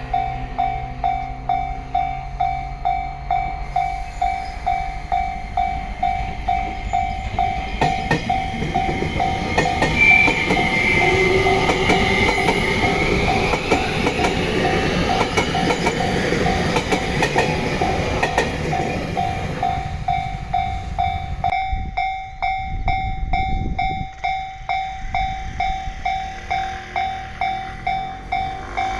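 Japanese level-crossing warning bell ringing its repeating ding-ding while an electric train passes over the crossing. The train's rumble and the clatter of its wheels over the rail joints build up, are loudest midway and fade out a few seconds before the end, with the bell ringing on.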